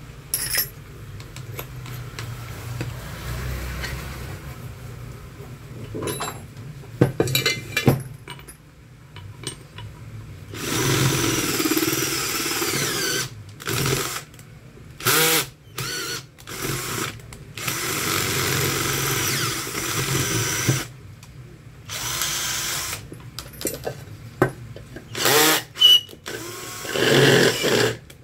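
Cordless drill boring into a small metal bracket and then a pressure-cooker lid, run in repeated bursts of one to three seconds with short stops between. Before the drilling starts there are a few clicks as the bit is fitted.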